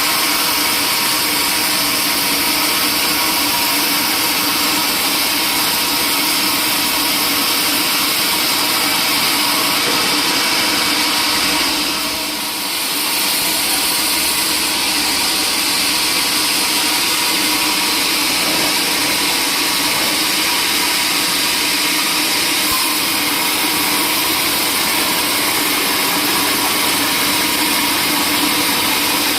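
Sawmill saw running steadily with a loud, even mechanical noise, dipping briefly about twelve seconds in.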